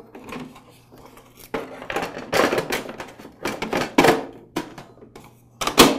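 Plastic drip tray and parts of a DeLonghi espresso machine being slid and pushed into place, scraping and knocking against the housing several times, with a sharp clack near the end as a part seats.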